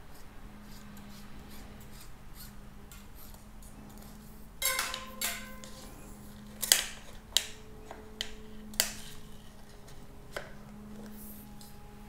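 Steel inner brake cable being handled and worked on a road bike: faint ticking at first, then from about halfway a run of sharp metallic clicks and snaps, a couple with a brief ring.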